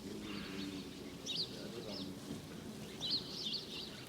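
Small birds chirping outdoors: quick, twisting high notes in two short bursts, with a faint low murmur underneath.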